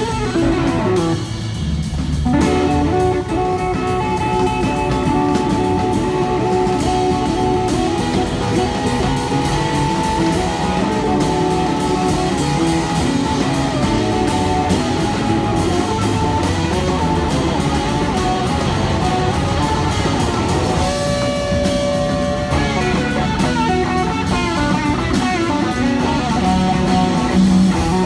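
Live band playing an instrumental passage, with electric guitar leading over drums.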